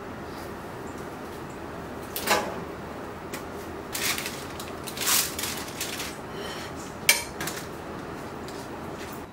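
Kitchenware being handled and set down: a few brief clinks and knocks over a quiet background, the sharpest about seven seconds in.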